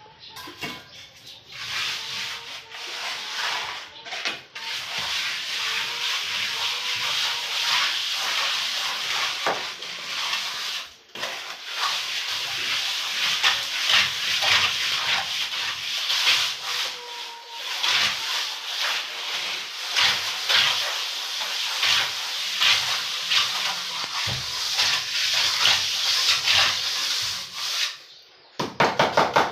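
A plastering float scraping and rubbing over fresh cement plaster on a block wall in quick repeated strokes, pausing briefly near the end.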